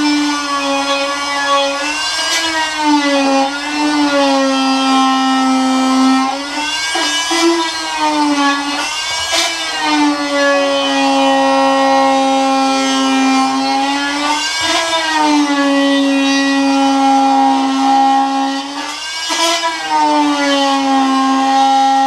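Corded oscillating multi-tool with a scraper blade running steadily while stripping old non-skid coating off steel, a loud buzzing whine whose pitch sags and recovers every few seconds as the blade is pressed in and eased off.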